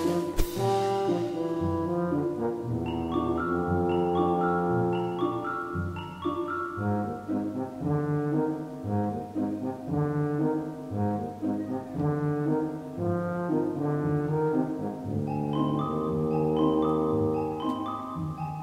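Instrumental background music with a melody of short stepped notes. A sharp click about half a second in.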